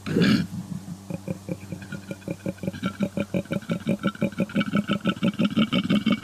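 An animal's call: a short loud burst, then a rapid run of about eight to ten pulses a second, growing louder toward the end.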